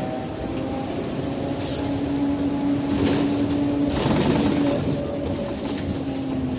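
Scania K270 bus under way, its engine and drivetrain running with a steady hum. A noisier, rattling stretch comes about three to four seconds in.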